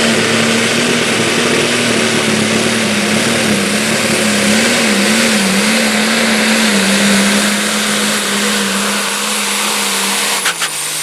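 Diesel pulling tractor at full throttle dragging a weight-transfer sled, belching black smoke, its steady engine note carrying a high whistle. The note wavers and sags a little partway through, then drops away near the end as the tractor comes off the throttle, with a few sharp clicks.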